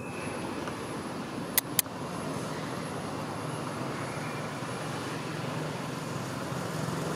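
Steady rumble of a running motor vehicle, with two sharp clicks in quick succession about a second and a half in.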